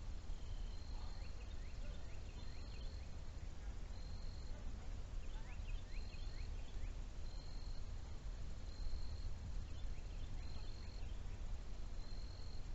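A short high note repeated about once a second, with faint quick chirps of other wildlife scattered around it, over a steady low rumble.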